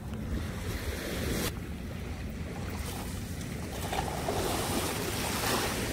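Shallow sea surf washing, with wind rumbling on the microphone. About four seconds in, as a cast net is thrown, the rush of water grows louder and fuller.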